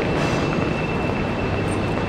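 Steady rumbling background noise in a station concourse, with a faint high whine held through it.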